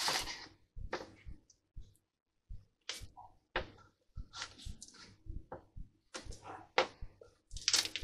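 Covering iron rubbing and sliding over heat-shrink Solartex fabric on a balsa wing tip: an irregular series of short scuffing, rustling strokes with brief gaps between them.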